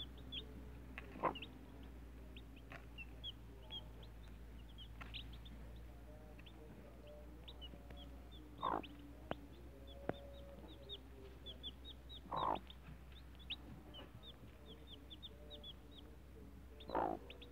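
Domestic chicks peeping continuously in short, high cheeps, with a mother hen giving about four louder, lower clucks spread through the stretch.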